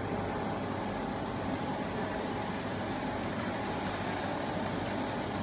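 Steady background hum and hiss with a faint constant tone, the same throughout; the small screwdriver turning the screw makes no distinct clicks.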